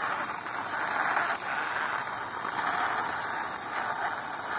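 Plastic toy dump truck pushed by hand along a rough concrete wall, its plastic wheels rolling with a steady scraping noise.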